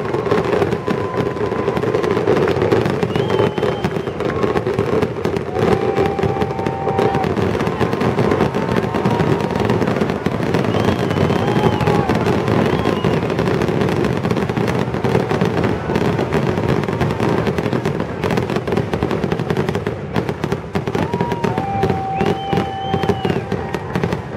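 Fireworks finale: a continuous, dense barrage of rapid bangs and crackling shell bursts with no let-up.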